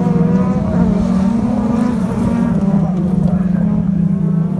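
Several race car engines running hard at high revs in a dirt-track race final, a steady engine drone that wavers slightly in pitch.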